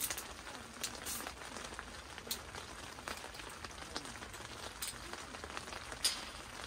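Rain falling on a tent, a faint steady patter with a few sharper ticks of single drops scattered through it.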